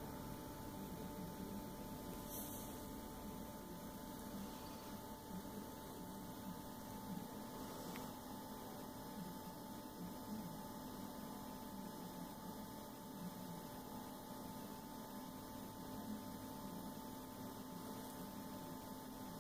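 A faint, steady electrical hum, mains hum, with low room noise.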